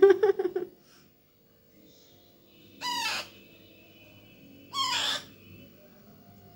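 Hand-fed baby parrot chick, about 25 days old, giving two harsh food-begging calls at the feeding spoon. Each call lasts about half a second and falls in pitch, and the two come roughly two seconds apart.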